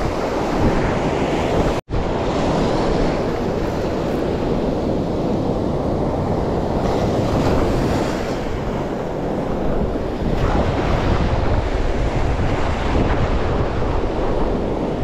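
Sea surf breaking and washing in over the shallows, with wind buffeting the microphone. The sound drops out for an instant about two seconds in.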